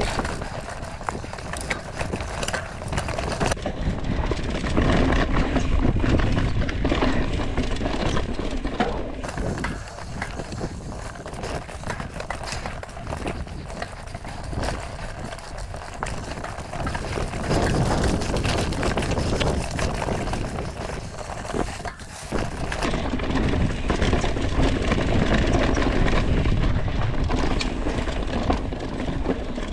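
Mountain bike riding over leaf-covered dirt singletrack, heard from a handlebar-mounted GoPro: tyres crunching through dry leaves and over rocks and roots, with a constant clicking rattle from the bike and a low rumble.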